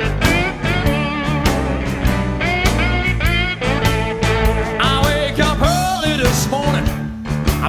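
Rock music led by guitar, with bending, sliding melody lines over a bass line and a regular beat.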